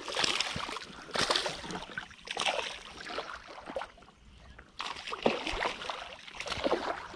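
Water splashing and sloshing in several irregular bursts, with a quieter lull midway: a hooked bass thrashing at the surface as it is fought on the line.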